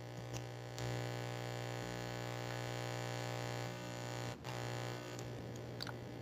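Steady electrical mains hum: a low buzz with many even overtones, a little louder for a few seconds in the middle. A faint click comes about half a second in and another near four and a half seconds.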